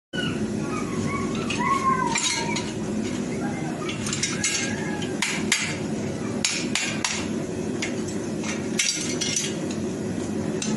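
Farrier's hammer tapping nails into a horse's hoof on a hoof stand: a dozen or so sharp, irregular metallic knocks, most of them after the first few seconds, over a steady low hum. A few short animal calls come near the start.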